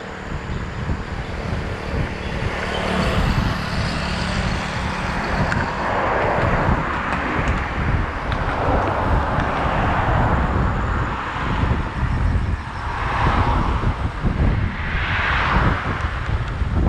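Wind buffeting the microphone during the bike ride, with several motor vehicles swelling past on the road.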